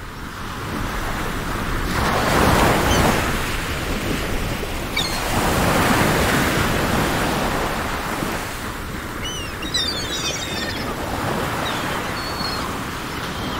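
Sea waves washing onto a shore in slow surges, with a few short high chirps over them.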